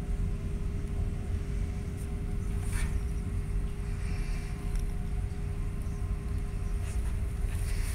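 Steady low machinery rumble with a constant hum, such as the pumps and filtration of a large aquarium tank.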